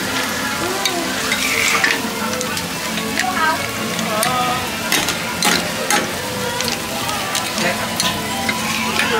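Food sizzling in a hot wok as it is stir-fried, with the metal spatula repeatedly scraping and clanking against the pan.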